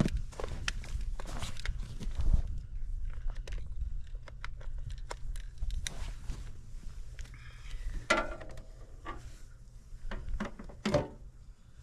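Footsteps crunching, with scattered knocks and handling clatter.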